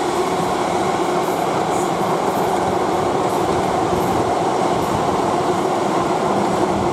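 A pair of Class 444 electric multiple units running past with a steady rumble of wheels on rail.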